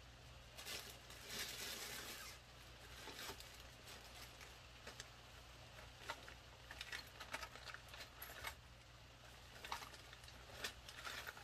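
Faint rustling and scattered small clicks and taps of hands rummaging through loose parts on a workbench in search of a screw. The rustle is busiest in the first couple of seconds, and light clicks follow every so often.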